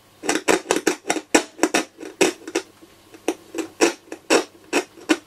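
Push-button waveband keys of a Dynatron Atlantis transistor radio being pressed over and over, a quick run of sharp plastic clicks, several a second. No sound comes from the set between the clicks: the radio is dead.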